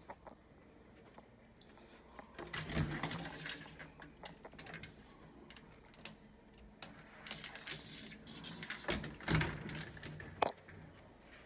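Rustling and knocking from handling a handheld camera while walking from room to room, in two busier stretches, with scattered clicks and one sharp click near the end.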